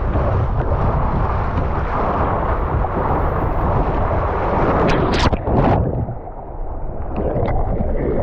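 Steady rush of water and a body sliding fast down an open water-slide chute. About five seconds in there is a splash into the pool, followed by a duller, muffled stretch of water noise.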